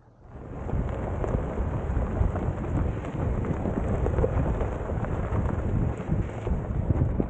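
Steady rumble and gravel crackle of a Subaru Outback Wilderness's Mickey Thompson Baja Boss A/T tyres rolling over a dirt-and-gravel track, heard from a camera mounted low on the car beside the wheel. It starts suddenly about half a second in.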